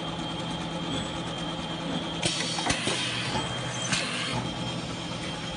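Multi-spindle chamfering drill running steadily with a low hum and a high whine while its bits cut countersinks into metal hinge leaves. A few sharp, noisy bursts come about two seconds in and again near four seconds.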